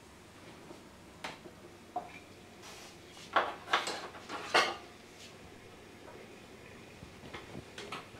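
Kitchen utensils and dishes knocking and clattering: single light knocks twice in the first two seconds, then a burst of louder clatter and scraping between about three and five seconds in, and a few small clicks near the end.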